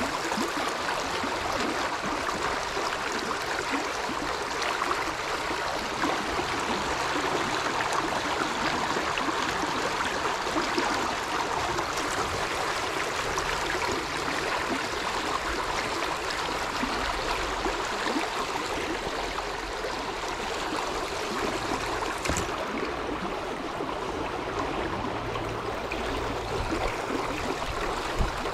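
A small river running, a steady rush of flowing water.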